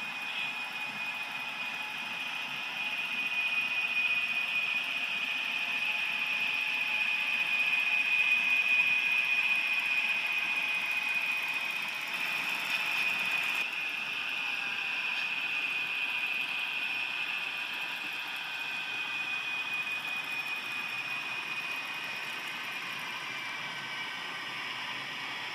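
HO scale model diesel locomotives running along the track, a steady high motor-and-gear whine with wheel and rail noise that grows louder as the consist passes, then eases off near the end.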